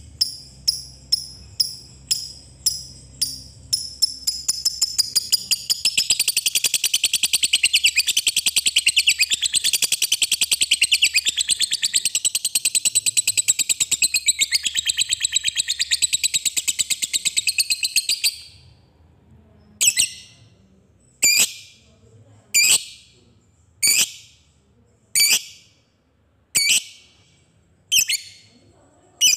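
A lovebird calling. It starts with separate sharp chirps (its "ngetik" ticking) that quicken, runs into a long, fast, high-pitched "ngekek" trill of about fourteen seconds that stops abruptly, then gives single sharp chirps about every second and a quarter.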